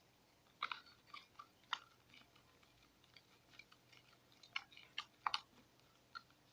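Homemade detergent slime being worked by hand or spoon, giving faint, irregular, sticky squelching clicks. Clusters come about a second in and again near five seconds; the mix is runny enough to squirt, the sign of a slime that has not set.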